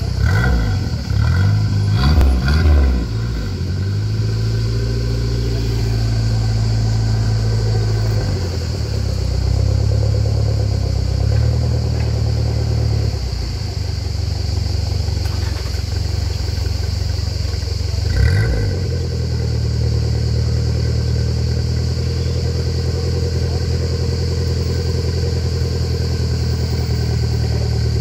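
Renault 5 GT Turbo's turbocharged four-cylinder engine heard at the tailpipe: a few quick revs at the start, then settling into a steady idle, with one short blip of the throttle about two-thirds of the way through.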